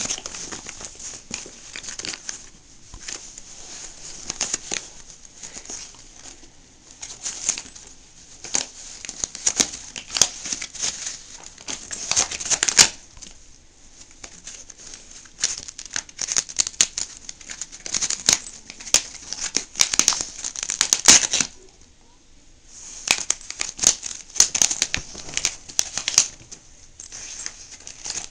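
A dog chewing and tearing apart a blue fabric toy: dense bursts of ripping and gnawing on the cloth, broken by two short lulls, about halfway and about three quarters through.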